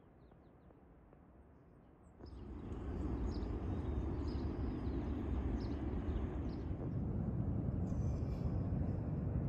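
Quiet outdoor air with a few faint high chirps. About two seconds in it cuts suddenly to a steady low roar of seaside wind and surf, with faint short high chirps over it.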